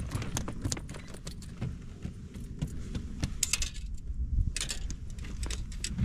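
Jingling and clicking of fishing tackle being handled, with wind rumbling on the microphone.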